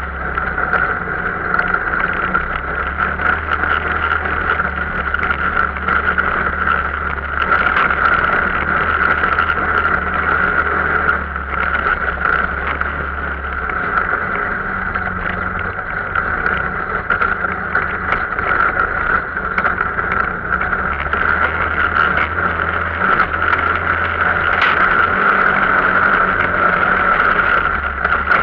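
Arctic Cat off-road vehicle's engine running steadily under way, a continuous loud drone with no pauses.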